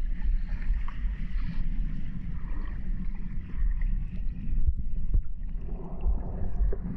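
Muffled underwater rumble of water churned by swimmers and fins, heard through a camera submerged in a swimming pool during an underwater hockey game, with a few sharp clicks about five seconds in.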